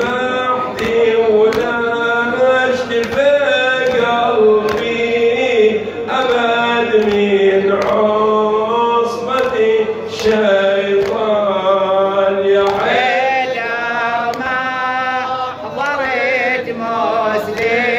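Men chanting an Arabic nawha (Shia mourning lament) with long, wavering held notes, over an even beat a little more than once a second, typical of mourners' chest-beating (latm).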